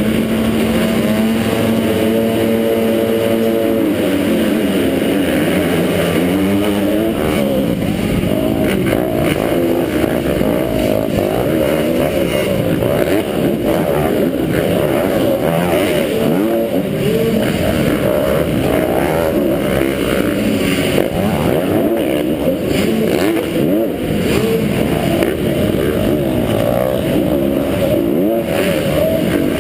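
Dirt bike engines, heard from a camera mounted on one of the bikes. They hold a steady pitch for about four seconds, then the pitch shifts as the bikes set off. From then on the engines rev up and down continuously through the corners of the track.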